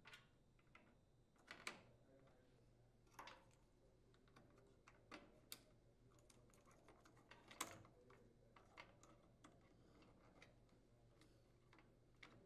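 Faint sharp plastic clicks as wire harness connectors are handled and pushed onto the terminals of a dryer's electronic control board. There is a click every second or two, the loudest about seven and a half seconds in.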